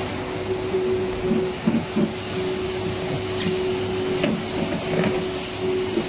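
A steady machine hum with one steady tone that cuts off near the end, with faint voices in the background.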